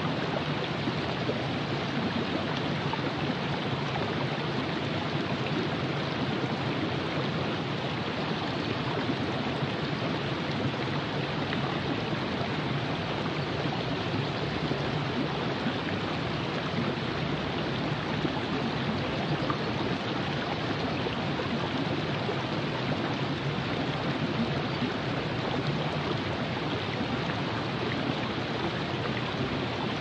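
Virgin River flowing: a steady, even rush of moving water.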